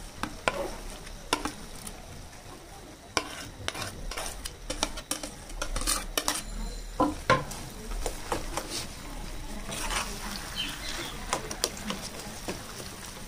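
Metal spoon and spatula scraping and clinking against a plate and a frying pan as mashed potato is stirred, in irregular clicks and scrapes over a frying sizzle.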